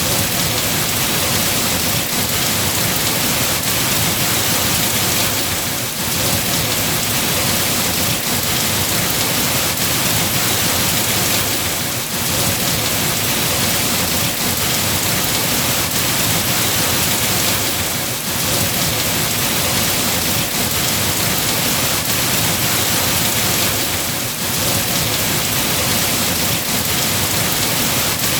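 Steady rain falling, a dense even hiss that eases slightly about every six seconds.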